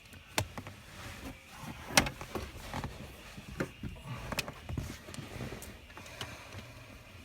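Plastic car-interior trim and clips being worked loose by hand: a series of sharp clicks and knocks with rattling and rustling between them, the loudest knock about two seconds in.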